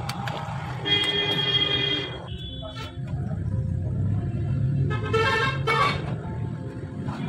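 A vehicle horn honking twice, each honk about a second long: once about a second in and again about five seconds in.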